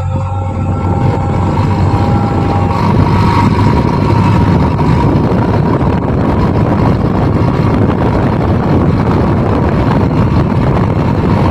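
JCB backhoe loader's diesel engine running under load, a loud steady rumble that builds a little over the first few seconds and then holds.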